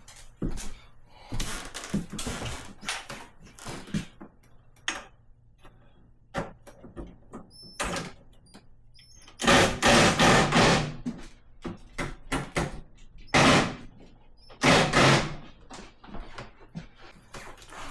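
Impact driver running in the ice maker's mounting screws in three short bursts, the first about a second and a half long, the other two briefer, with scattered clicks and knocks of handling between them.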